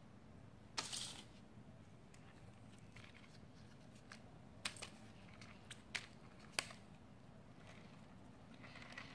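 Faint handling noise from a 1/5-scale RC motorcycle being moved about by hand: a few light plastic clicks and taps, with a brief rustle about a second in and sharper clicks around the middle.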